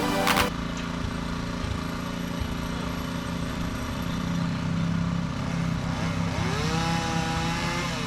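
A small engine running steadily at low speed.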